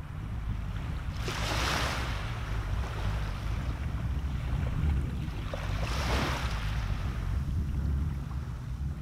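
Small waves washing up onto a sandy beach: two hissing swells of surf, one about a second in and another just past the middle, over a steady low rumble of wind on the microphone.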